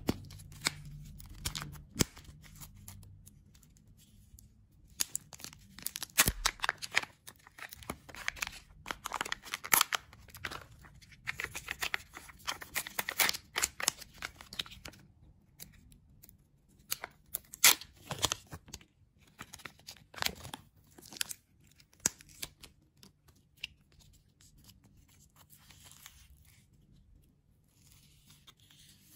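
A Kinder Joy egg being unwrapped by hand, in irregular bursts of tearing and crinkling. The wrapper is torn and crumpled, and the printed foil lid is peeled off the plastic half-shell. It goes quieter toward the end.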